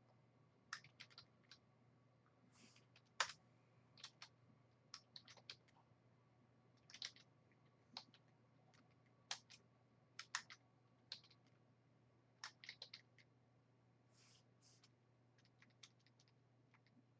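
Quiet typing on a computer keyboard: irregular short runs of keystrokes separated by pauses, over a faint steady low hum.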